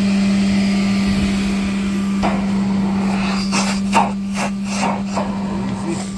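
Battery-powered Nobles Typhoon 16B wet/dry vacuum machine running with a steady hum. From about two seconds in, a series of sharp knocks or rattles comes over it, two or three a second.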